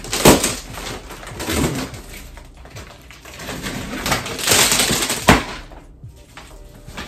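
Box cutter slicing the packing tape on a large cardboard shipping box, then the cardboard flaps pulled open, scraping and rustling. Two sharp knocks, one near the start and one about five seconds in.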